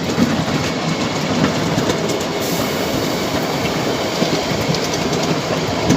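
Ride-on miniature railway train running along its track, heard from a passenger seat: a steady noise of the wheels on the rails.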